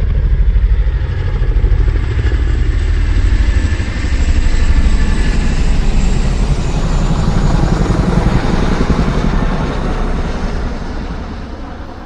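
A loud vehicle passing, a low rumble with a fast pulsing flutter, fading away near the end.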